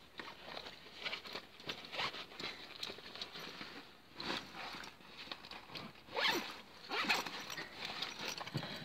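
A backpack's zip being pulled and its fabric rustling as the bag is handled and set in place, in short irregular strokes, a few stronger ones near the end.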